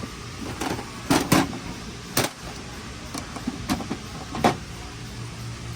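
Scattered metallic clicks and knocks of hand tools being handled, a ratchet picked up and put to the new oil cooler line's bolts. About seven separate sharp knocks come at uneven intervals, not a steady ratcheting run.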